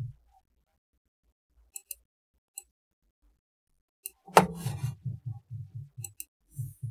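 Computer keyboard and mouse in use. A few faint sharp clicks over a near-silent room, then from about four seconds in a louder click and a run of dull low thumps of typing, about four a second.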